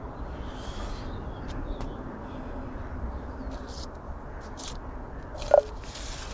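Outdoor garden ambience: a steady low background rumble with faint, short high-pitched sounds scattered through it, and one louder short sound about five and a half seconds in.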